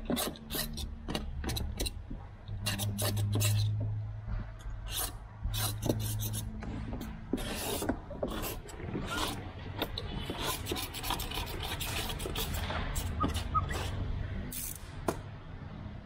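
Repeated short rubbing and scraping strokes across window tint film on car glass, irregular in pace, as the film is worked onto the window. A low hum comes in about two and a half seconds in and stops about four seconds later.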